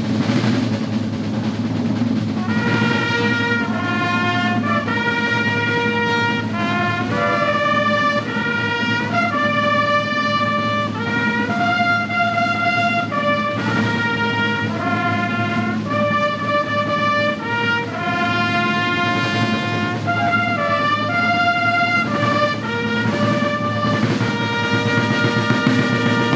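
Ceremonial band music: drumming, joined about two and a half seconds in by a brass melody.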